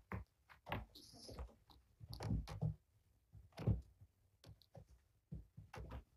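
Kittens scrambling and wrestling on a carpeted cat tree: an irregular patter of soft thumps from paws landing and scratching from claws gripping the carpet, a few thumps louder than the rest.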